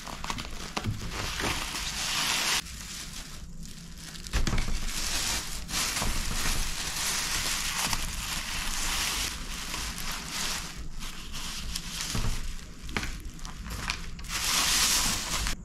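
Thin plastic carry bag crinkling and rustling as it is handled and pulled off two takeaway boxes, in continuous handling noise with short lulls.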